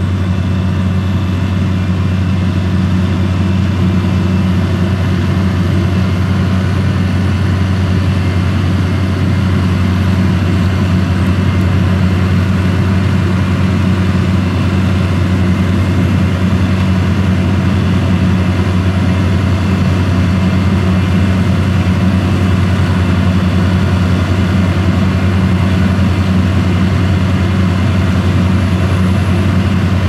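Dewulf RA 3060 self-propelled potato harvester at work, its engine and machinery running at a steady low drone while lifting potatoes.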